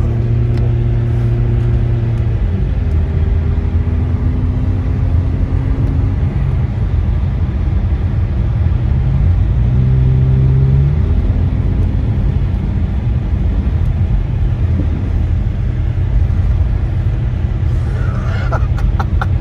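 Car engine pulling hard while driving on a snowy road. Its pitch holds, drops sharply about two and a half seconds in, climbs again around ten seconds and drops once more, all over a heavy low rumble of tyres and snow.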